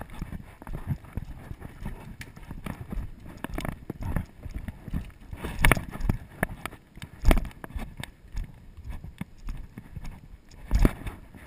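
Footsteps on a dirt forest trail, heard close to the walker, with irregular low thuds and rustling. Three louder thumps stand out, two mid-way and one near the end.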